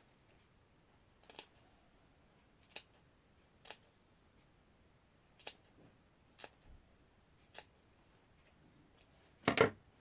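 Scissors snipping in separate cuts, roughly one a second, with a louder clunk near the end.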